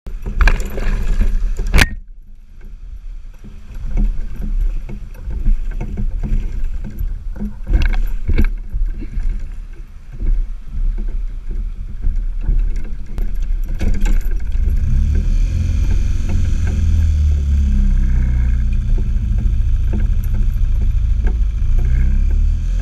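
Wind rumbling on the microphone and water sloshing against an inflatable boat, with scattered knocks. About 14 seconds in, a small outboard motor starts and runs steadily at idle, its pitch wavering slightly.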